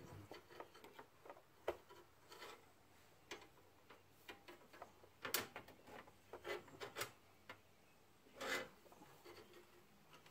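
Faint, scattered taps and rubbing from brake line tubing being handled and fed along a car's underbody, with a couple of slightly louder scrapes about five and eight seconds in.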